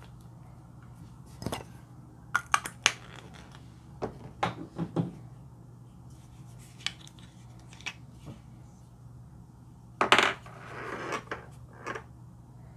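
Fingertips poking and pressing sticky slime, giving sharp wet clicks and small pops in short clusters. The loudest comes about ten seconds in, followed by a longer crackling squish.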